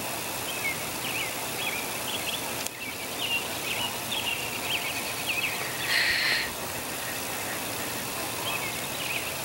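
Birds chirping in short, quick, repeated calls over steady outdoor background noise. The calls cluster in the first half and come again near the end, and a brief, harsher noisy burst about six seconds in is the loudest sound.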